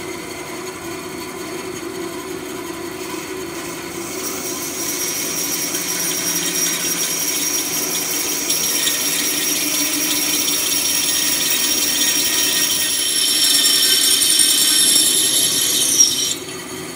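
Wood-cutting bandsaw with a wood-cutting blade sawing through a soft aluminium plate: the saw runs steadily while a high rasp of the blade in the metal grows louder from about four seconds in. Near the end the rasp drops away suddenly as the blade breaks into the bored hole.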